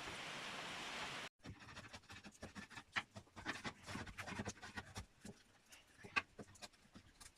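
A steady rushing noise, like running water, cuts off abruptly about a second in. Then come irregular short scraping strokes and light taps of a hand tool cutting into wood.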